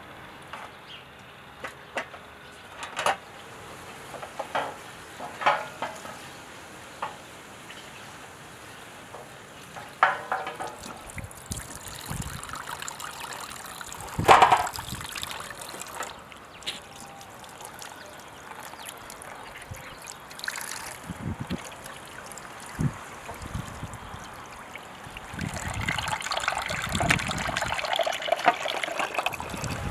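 Scattered knocks and clinks of fish being handled in a metal tray at a sink, then, from about 25 seconds in, a steady stream of tap water running into the sink.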